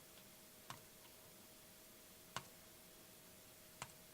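Three faint computer mouse clicks spread over about three seconds, over near-silent room tone with a faint steady hum.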